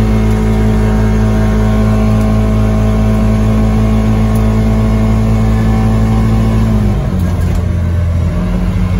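A CFMOTO Uforce 600 UTV's engine and CVT drivetrain hold a steady, high-revving drone at about 6,500 rpm near top speed in high range. About seven seconds in, the throttle comes off and the pitch drops as the revs fall to around 5,000 rpm.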